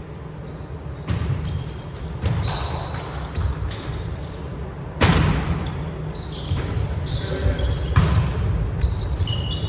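Indoor volleyball rally: the ball is struck four times, the hit about halfway through the loudest, with sneakers squeaking on the court floor throughout.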